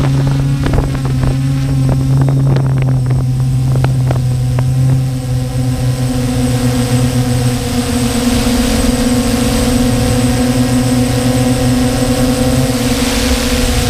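Multirotor drone (DJI F550 hexacopter) motors and propellers humming steadily at a constant pitch, picked up by the GoPro mounted on it, with wind rushing over the microphone and a few short crackles in the first five seconds.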